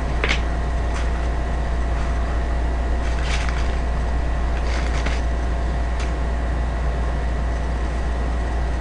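Steady low background hum with faint steady tones above it, broken by a few faint crunching clicks about three and five seconds in.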